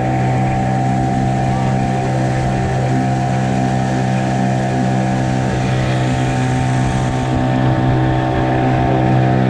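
Boat engine running steadily at a constant speed, an even low hum with rushing noise over it.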